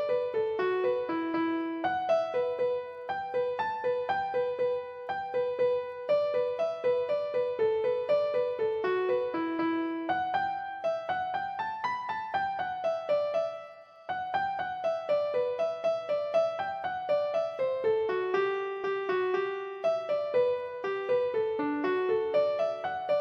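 Background music: a piano playing a steady melody of single notes, with a short break about two-thirds of the way through.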